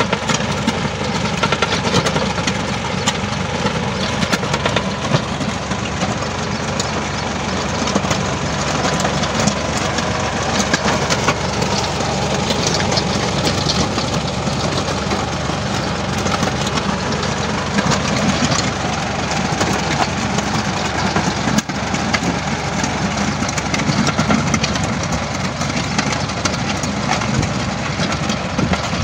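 Small compact tractor's engine running steadily under load as it pulls a rear-mounted implement through the soil.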